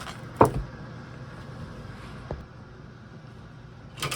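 A sharp knock about half a second in and a couple of fainter clicks later, over a steady low hum.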